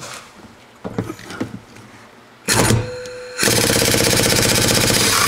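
Impact wrench driving a Torx bit through a half-to-3/8 reducer against a stuck Torx bolt. It gives a short burst about two and a half seconds in, then about two seconds of steady rapid hammering.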